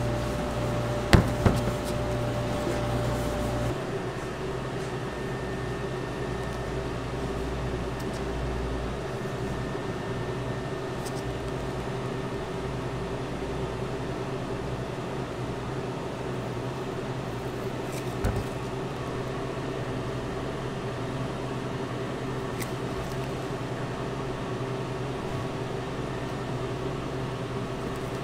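Steady hum of commercial kitchen equipment and ventilation, with a couple of sharp knocks about a second in and another near the middle. The knocks are kitchen tools and the cheese block on the cutting board. One tone in the hum stops about four seconds in.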